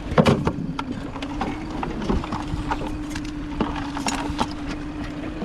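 Irregular clicks and knocks of a wire crab trap and crabs being handled, the loudest knock just after the start, over the steady hum of a boat motor.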